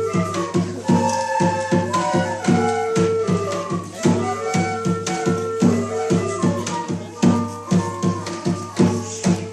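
Korean traditional music (gugak) ensemble playing a folk tune: a sustained melody line over a steady, regular drum beat.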